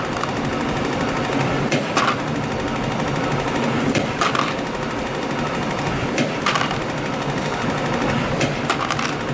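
CNC spring coiling machine running steadily, feeding and coiling 0.8 mm wire into arc-shaped compression springs. A sharp click comes about every two seconds, four times in all, one for each finished spring as it is cut off.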